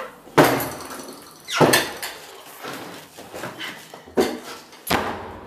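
Four sharp thumps and knocks, each dying away quickly, about a second or more apart.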